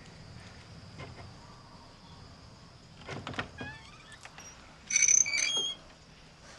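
A wooden door creaking on its hinges: a short creak with a knock about three seconds in, then a louder, higher creak about five seconds in.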